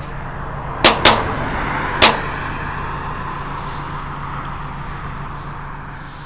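Three sharp gunshots: two in quick succession about a second in and a third about a second later, over a steady rush of vehicle noise that slowly fades.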